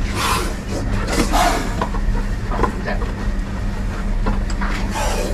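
A steady low hum with a few short hissing bursts and light sharp knocks as a cobra is lifted from a plastic bucket and put back into a wooden cage.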